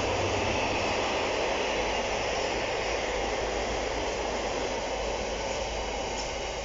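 Container flat wagons of a freight train rolling past, a steady rumble of wheels on rail that slowly gets quieter as the train draws away.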